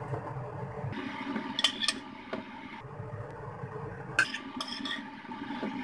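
Metal ladle clinking and scraping against cookware as braised chicken wings and chestnuts are spooned into a ceramic bowl, in two short bursts of clinks, over a steady low hum.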